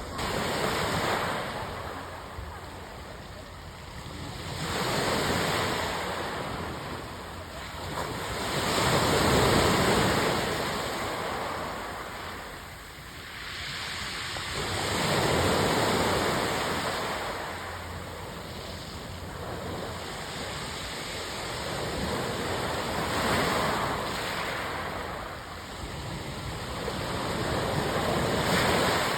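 Sea surf: waves breaking and washing in one after another, each swelling up and fading away over a few seconds.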